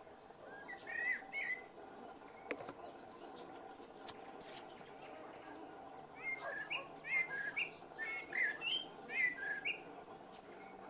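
Eurasian blackbird singing its slow evening song: a short fluted phrase about a second in, then a longer run of fluty notes with high twittering from about six to nine and a half seconds. A faint steady whine of mosquitoes runs behind it.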